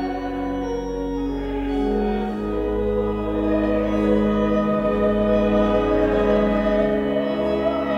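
Organ playing a hymn in long, steady held chords, with a children's choir singing along faintly.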